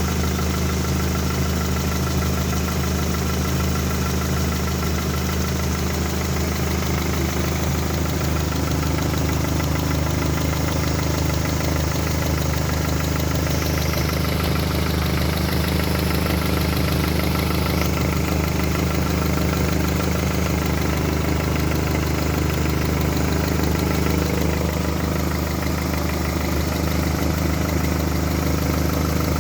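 1998 Honda Accord EX-R engine idling steadily, making an unusual noise that the owner calls strange.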